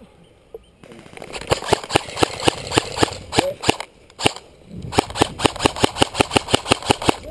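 Airsoft guns firing close by: sharp cracks in two quick strings of rapid shots, with a brief pause about four seconds in.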